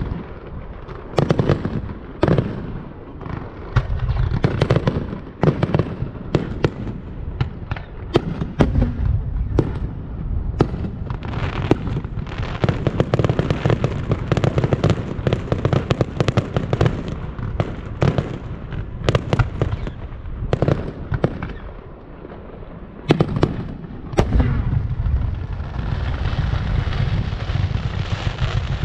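Fireworks going off: many sharp bangs in quick succession, with stretches of dense, rapid crackling over a low rumble.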